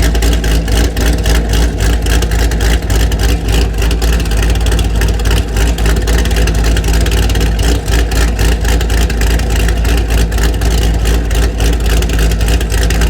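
Corvette V8 running through a titanium exhaust at a steady speed: a loud, deep exhaust rumble that neither rises nor falls.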